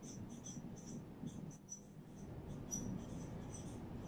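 Whiteboard marker squeaking across the board as words are written: a run of short, high squeaky strokes with brief gaps between them.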